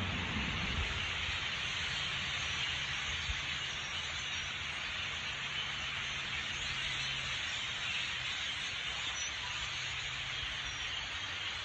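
A huge flock of birds squawking all at once: a dense, steady din of overlapping calls, with a faint low hum underneath.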